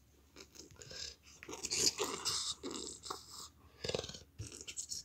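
Brick-built LEGO figures being handled and moved across a play mat: soft, irregular scraping and rustling.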